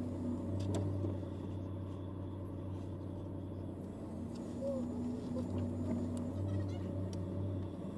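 Truck engine running at a steady idle, heard from inside the cab, with a low hum that swells a little now and then.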